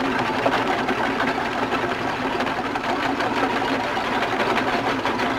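A steady, fast mechanical rattling drone, a stylized soundtrack effect rather than a recorded natural sound.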